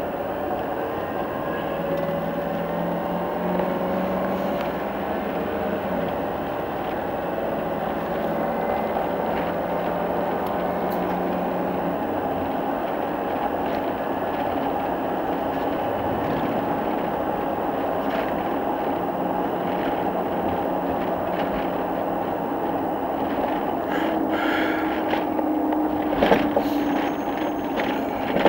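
Steady engine and road noise heard inside a moving vehicle, with faint whining tones that drift slowly in pitch. A few knocks and rattles come near the end.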